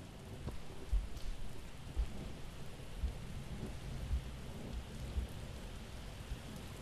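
Steady rain with low rumbles of thunder, and soft low thuds about once a second.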